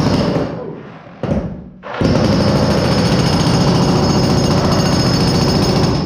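Electric jackhammer chiselling into a concrete slab floor. A burst of hammering fades out about a second in, there is a brief blip, and then a steady run of hammering starts about two seconds in.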